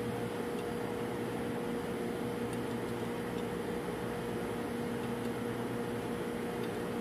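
Steady hum of running machinery in a ship's refrigeration plant space: an even hiss with a constant mid-pitched tone, unchanging throughout.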